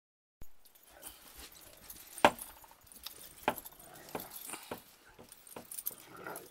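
After a brief silence, Great Danes playing in deep snow: scattered sharp clicks and knocks, the loudest a little over two seconds in.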